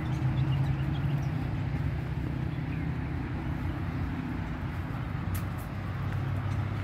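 A steady low motor rumble, unbroken throughout.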